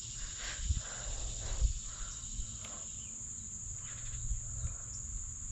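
Steady high-pitched chorus of insects such as crickets, with a couple of short low thumps in the first two seconds.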